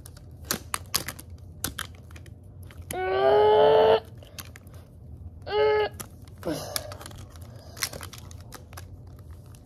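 Plastic action figures and a toy motorcycle clicking and knocking as they are handled and pushed together. Over this a child makes two wordless vocal sound effects: a loud held one about three seconds in, and a shorter one near six seconds.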